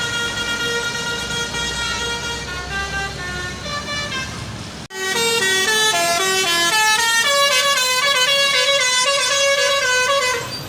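Indonesian bus 'telolet' (basuri) multi-tone musical horn playing a melody of held, stepping notes over the low running of the bus engine. It breaks off suddenly about five seconds in, and a second horn plays a quicker run of changing notes.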